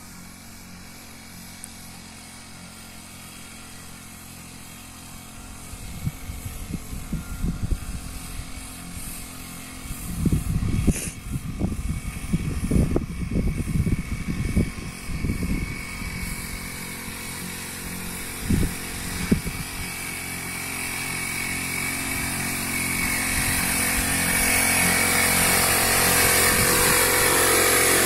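Small engine of a motorised pesticide sprayer running steadily, getting louder over the last several seconds as the spray lance comes close, with the spray hissing. Low gusts of wind buffet the microphone through the middle.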